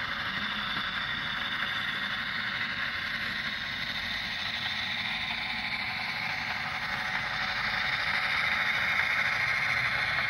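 HO-scale Intermountain F7 diesel model locomotives running on the layout: a steady whir of motor gearing and wheels rolling over the rails, getting a little louder in the last few seconds as the train nears.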